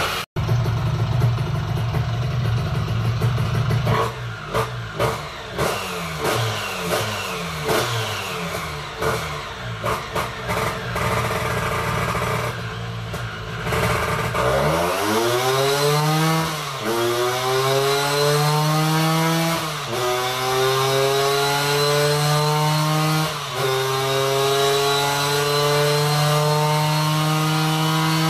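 Two-stroke Vespa scooter engine with a VMC GS125 cylinder kit and SIP Road exhaust, running on a roller dyno. It is revved up and down in quick blips for the first half, then held at full throttle with the pitch climbing through the gears, dropping sharply at three upshifts.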